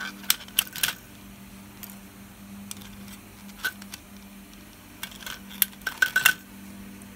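Plastic parts of an opened VHS cassette clicking and clinking as they are handled while the reel brake pieces and springs are worked loose. A few quick clicks come in the first second, a single one about halfway, and a tight cluster near the end, over a steady low hum.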